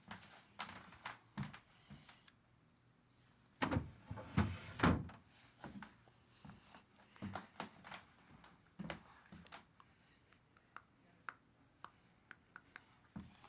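Rummaging through clothes in a dresser drawer: scattered clicks, knocks and handling noises, with a few louder thumps about four to five seconds in.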